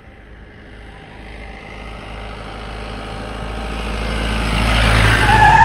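A motor vehicle approaching along a highway, its engine and tyre noise growing steadily louder as it closes in. Near the end a horn sounds with a steady two-tone blare as it draws level.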